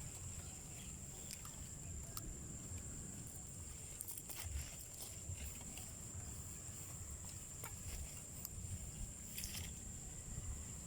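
Quiet outdoor background: a steady high-pitched insect drone with a low rumble, broken by a few faint rustles and clicks of movement.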